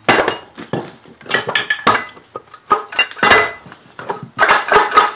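Metal tools knocking and clanking on a 2001 Mazda Tribute transmission case as it is knocked apart: a dozen or so irregular strikes, some in quick runs, each with a short metallic ring.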